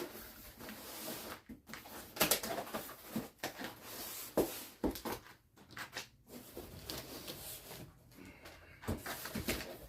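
Handling noises from unpacking machine parts: rustling of packaging with a few sharp knocks and clicks at irregular moments.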